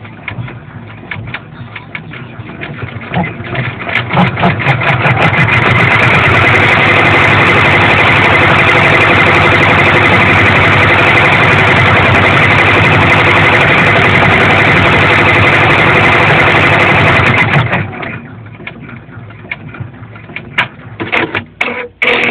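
Brother PR600 embroidery machine stitching at full speed: a loud, fast, steady stitching rhythm that builds up about four seconds in and stops abruptly near the end, with scattered clicks before and after.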